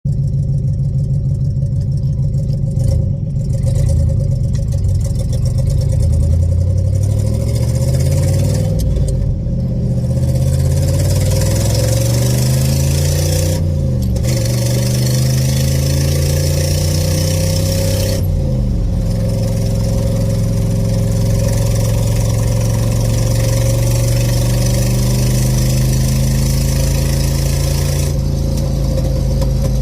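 Vehicle engine with an exhaust leak, revving up and dropping back several times, then settling to a steady run for the second half.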